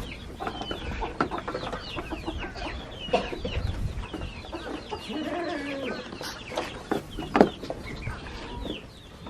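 Chickens clucking repeatedly in short calls, with scattered sharp clicks and a brief lower call about halfway through.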